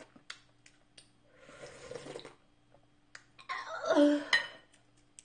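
A person slurping ramen broth and noodles: a softer slurp about a second and a half in, then a louder, longer one near the end, with a few small clicks of chopsticks and chewing before them.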